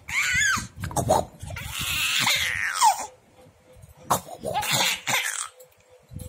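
Baby laughing in a series of high-pitched squealing giggles, with one long falling squeal about two seconds in.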